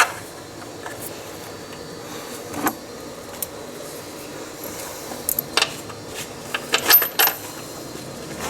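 Scattered metallic clinks of hand tools and metal parts being handled, with a quick cluster of clinks near the end that leaves a brief high ring.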